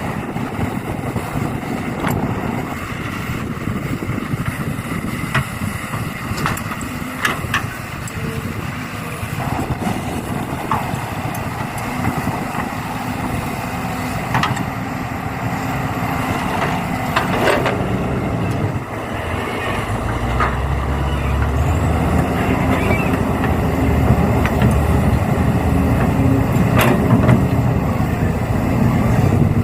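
Truck and excavator engines running steadily, with a few sharp knocks along the way; about two-thirds of the way through a deeper, louder engine note comes in and holds.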